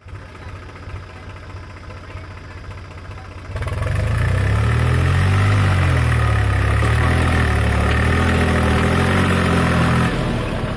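Swaraj 735 FE tractor's three-cylinder diesel engine idling, then revved hard about three and a half seconds in and held under heavy load, its pitch wavering, as it pulls a trailer loaded with earth. The engine eases back near the end.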